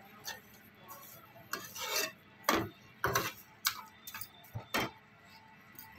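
Steel spoon stirring and scraping grated bottle gourd cooking down with sugar in a pan, in a string of irregular short scrapes against the pan.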